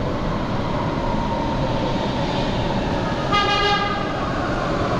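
Metro train arriving at an underground platform: a steady rumble through the station, with one short horn toot about three and a half seconds in.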